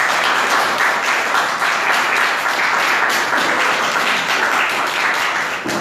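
Audience applauding at the end of a talk, dense and steady, thinning out near the end.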